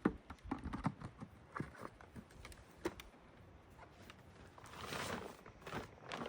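Footsteps on a rocky trail: irregular sharp clicks and scuffs of boots on stone. A louder rushing noise swells up about two-thirds of the way through and again near the end.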